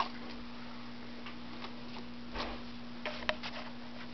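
A few light clicks and taps, bunched together about three seconds in, of a pet sparrow pecking at a noodle, over a steady low hum.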